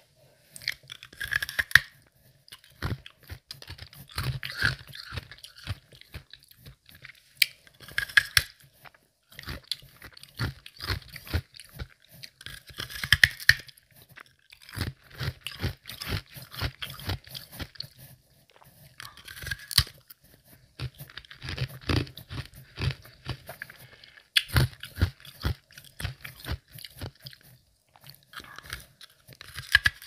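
A person biting and chewing semi-melted ice close to the microphone, with soft to medium crunches. The crunching comes in runs of a few seconds, broken by short pauses between bites.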